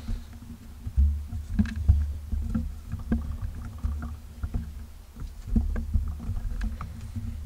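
Handling noise on a camera-mounted shotgun mic as the camera is picked up, swung around and set in place: irregular knocks and clicks over a low rumble.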